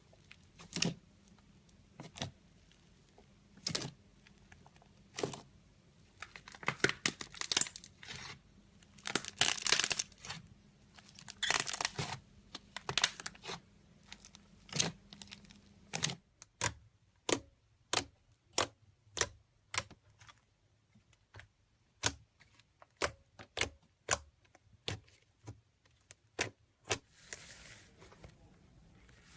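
Slime being squeezed and poked, giving sharp pops and crackles. The pops come in dense clusters in the first half and as single clicks about once or twice a second in the second half, with a short hiss near the end.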